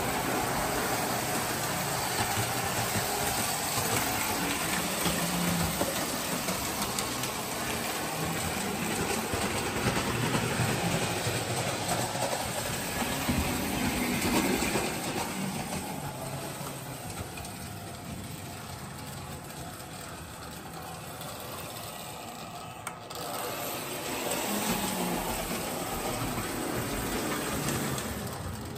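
Tinplate toy trains running on three-rail track: a prewar Lionel Standard Gauge 9U electric locomotive with its freight cars and a postwar Lionel Texas Special diesel. Steady rattling, motor whir and crackling, louder for the first half, dropping for several seconds, then rising again near the end.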